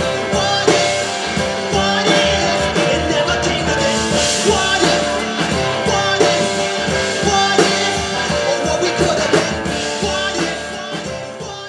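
Rock band music with singing, guitar and drums, fading out near the end.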